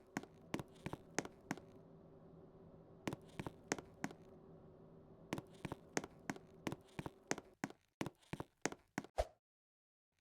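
Ceiling fan motor humming steadily, with sharp clicks and knocks at irregular intervals, several a second at times. The sound cuts off abruptly about nine seconds in.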